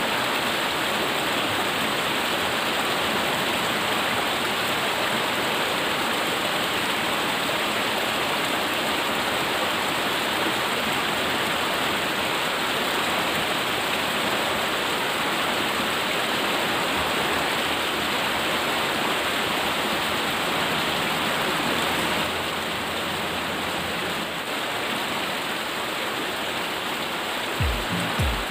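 Steady rushing of water, slightly quieter from about three quarters of the way through.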